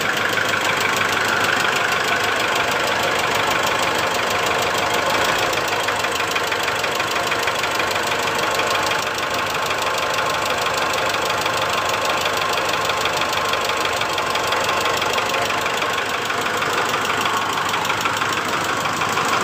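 2008 Mitsubishi Strada Triton GLS four-cylinder diesel idling roughly with a rapid tak-tak-tak knock. The knock goes on while the injectors are unplugged one at a time, still present with injector No. 2 cut out; the mechanic suspects injector No. 1 is at fault.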